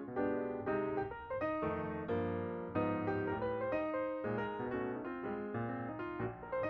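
Background music played on piano or electric piano: a continuous run of notes and chords at a moderate, flowing pace.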